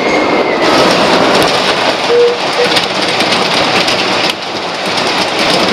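Colossus wooden roller coaster train running backwards along the track, its wheels clattering and rumbling on the wooden structure. The noise gets louder about half a second in and drops back just after four seconds.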